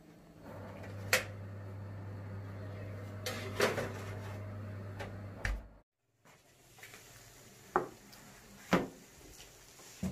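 Kitchen handling noise: a few sharp knocks and clatters of a metal baking pan and kitchen fittings, over a steady low hum that stops suddenly about halfway; three more knocks follow near the end.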